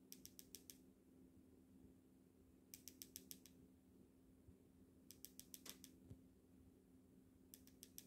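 Faint trains of quick sharp clicks, four to six at a time, repeating about every two and a half seconds over a low steady hum.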